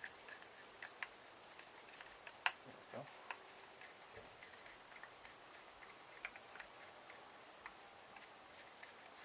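Faint, scattered clicks and light taps of a hand tool working on a small metal electrical plug as it is pried apart, with a sharper click about two and a half seconds in.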